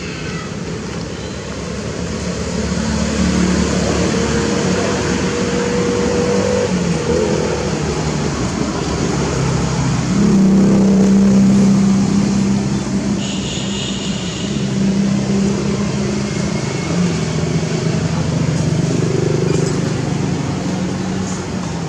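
A motor vehicle's engine running: a low, steady hum whose pitch steps up and down, loudest about ten seconds in.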